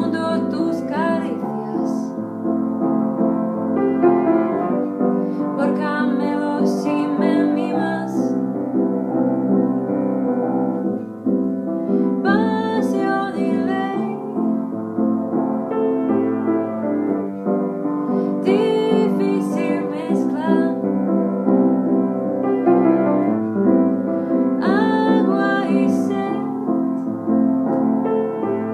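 A woman singing a song in Spanish while accompanying herself on piano: steady held chords under phrases of the sung melody, which come and go with short pauses between lines.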